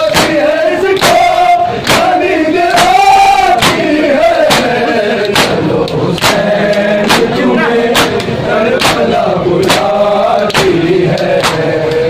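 A crowd of men chanting a Shia mourning lament (noha) in unison. Sharp slaps of matam chest-beating land together on the beat, about one every second.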